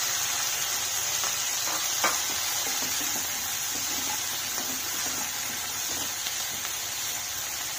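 Chopped tomatoes, onions and whole spices frying in butter in a pan: a steady sizzling hiss, with a couple of faint clicks about two seconds in.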